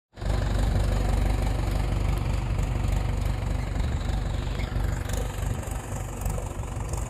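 Diesel tractor engine idling steadily with a fast, even chugging.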